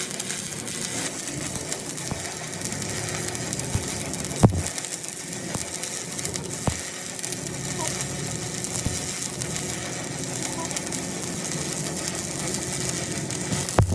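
Metal repair work on a truck axle: a steady hiss with a few sharp metallic knocks, the loudest about four and a half seconds in.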